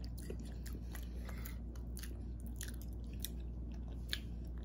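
A person chewing a mouthful of lasagna close to the microphone, with many small wet mouth clicks, over a steady low hum.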